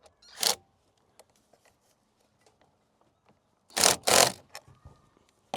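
Hand tool tightening a battery terminal clamp onto its post: short metallic scraping strokes with light clicks, one about half a second in and two louder ones together near four seconds.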